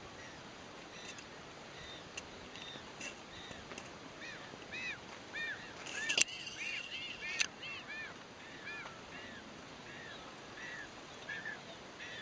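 Magellanic penguin chicks calling, a long run of short, high, rising-and-falling peeps, busiest in the middle. Two sharp clicks near the middle are the loudest sounds.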